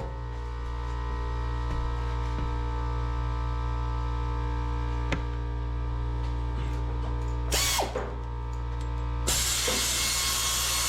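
Steady electrical hum with a few light tool clicks, then a power tool running for about two seconds near the end, the loudest sound here.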